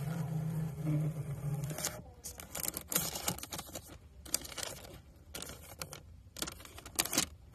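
The built-in printer of an Interacoustics AT235 impedance audiometer running and feeding paper with a steady motor hum, which stops about two seconds in. Irregular scratchy rustling and light clicks of the paper being handled follow.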